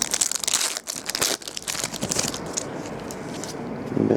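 Crinkling and rustling of trading card packaging and cards being handled, a dense run of small crackles that thins out after about two seconds.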